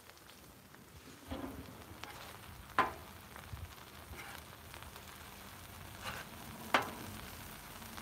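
Burger patties sizzling steadily on a Blackstone flat-top griddle. Two sharp clicks stand out, about three and seven seconds in.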